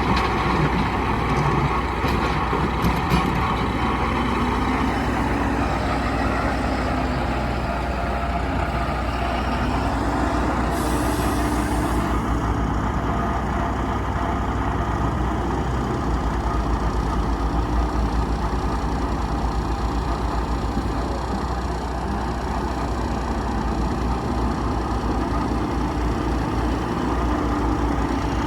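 A JCB 3CX backhoe loader's diesel engine running, revving up and easing back every few seconds as it works, over a steady engine drone. There is a short hiss about eleven seconds in.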